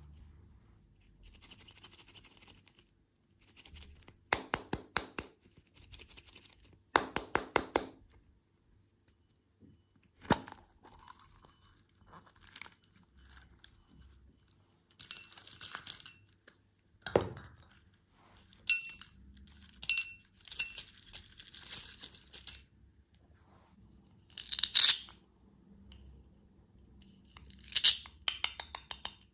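Candy packaging being unwrapped by hand: plastic crinkling and tearing, broken by sharp clicks and two quick runs of rapid clicking.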